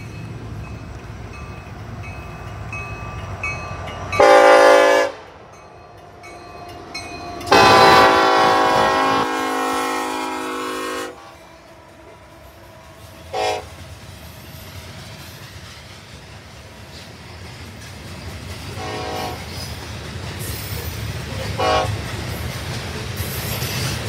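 Union Pacific SD70ACE's raised-letter Nathan K5LLA five-chime air horn sounding at a grade crossing. It gives a one-second blast about four seconds in, then a long blast of about three and a half seconds, then a short toot, and two more short toots near the end. Under the horn runs the steady rumble of the passing freight train.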